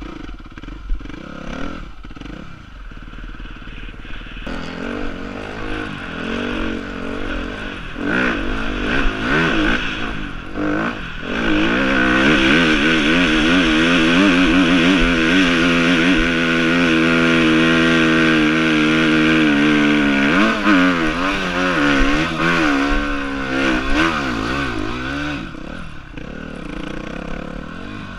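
Suzuki dirt bike engine ridden hard over rough ground. Its revs rise and fall, are held high and loud for several seconds in the middle while it climbs a steep slope, then waver up and down with the throttle before easing off near the end.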